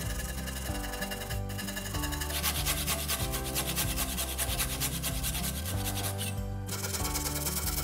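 Japanese handsaw cutting into a green 6x6 timber post: a fast, even run of rasping strokes that stops briefly a couple of times, loudest in the middle. Background music plays underneath.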